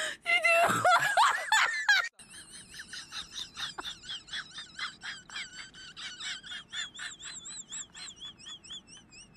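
A loud, high human voice for about the first two seconds, then a long run of rapid high-pitched peeping calls from a young bird, about four a second, each wavering in pitch.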